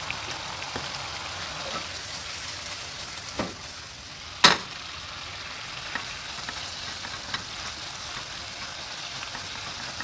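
Bitter gourd stir-fry sizzling in a non-stick frying pan while a wooden spatula stirs it. A couple of sharp knocks of the spatula against the pan come about three and a half seconds in, the louder one a second later.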